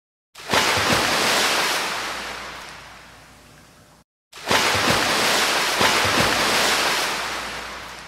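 Ocean wave crash sound effect, played twice: a sudden surge of rushing water about half a second in that fades away over a few seconds, then the same crash again about four seconds in.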